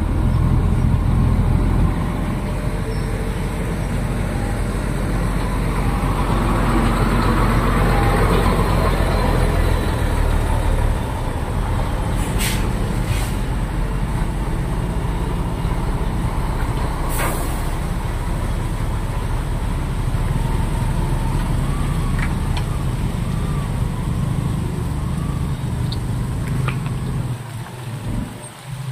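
Motor vehicle running steadily with a low engine rumble and road noise. There are a few short sharp hisses around the middle, and the sound fades near the end.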